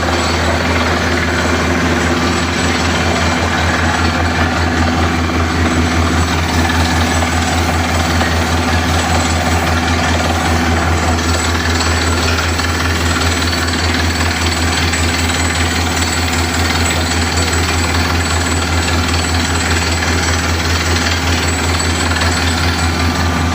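Borehole drilling rig hammering steadily through very hard rock: a rapid, even hammering over the deep drone of the rig's engine. The drilling goes on without a break.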